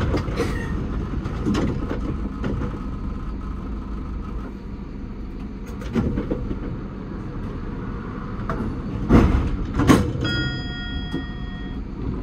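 Tram standing at a stop with its equipment humming low and steady, a few knocks, two louder thumps about nine and ten seconds in, then a bell-like chime of several tones that rings for about a second and a half.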